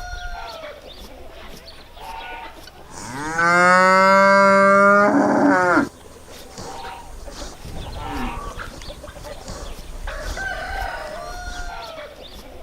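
A cow mooing once: a long, loud call starting about three seconds in that rises at the start, then holds steady for about two and a half seconds before stopping abruptly. Fainter animal calls, likely fowl, come and go around it.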